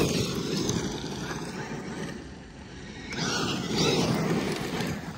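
Kyosho Mad Wagon 1/10 monster truck with a Castle Creations 3200kv brushless motor driving fast over loose gravel: motor whine and tyres churning the gravel. It is loudest as it passes close, fades, then comes close again about three seconds in.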